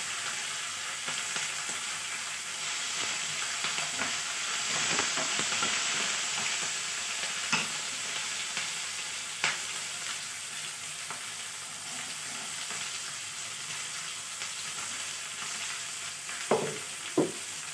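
Tempering sizzling steadily in hot oil in a kadai: lentils, mustard seeds, ginger and green chillies frying for upma. A few sharp clicks come through the sizzle.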